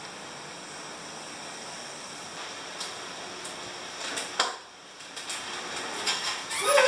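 Steady hiss, then scattered metal clinks and knocks from a homemade steel leg press in use: the loaded sled, weight plates and hanging chains shifting. A short, louder sound with a wavering pitch comes near the end.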